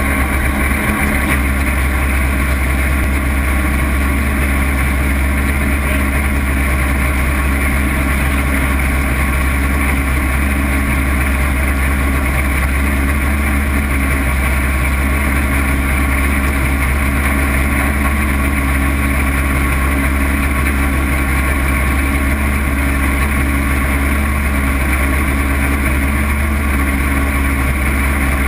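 Lowered VW Beetle autocross car's engine idling steadily, heard from inside the cab, with no revving.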